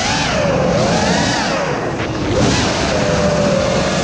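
FPV quadcopter's electric motors and propellers whining, the pitch swooping up and down as the throttle changes and settling steadier near the end, over a rush of air.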